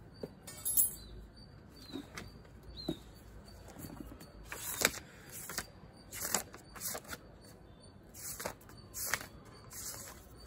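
Light handling noises: scattered short, soft rustles and clicks, several in a row in the second half.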